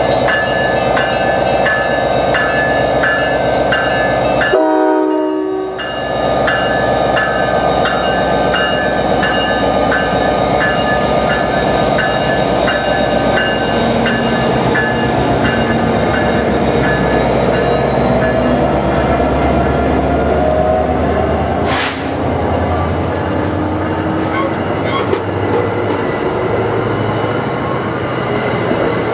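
NJ Transit commuter train pulling into the station, its PL42AC diesel locomotive and passenger coaches rolling past at low speed with a rumble that builds in the second half. A grade-crossing bell rings at about two strikes a second through the first half, a short horn chord sounds about five seconds in, and a single sharp clank comes about two-thirds of the way through.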